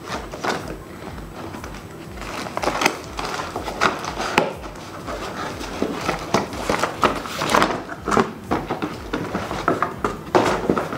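Cardboard shipping box being handled and its flaps pulled open, with irregular rustling, scraping and light knocks of cardboard.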